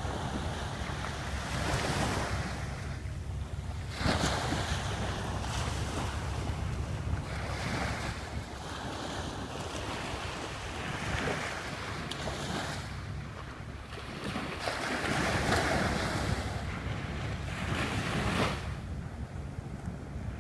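Small waves washing up on a sandy shore, rising and falling in surges every few seconds, with wind rumbling on the microphone throughout.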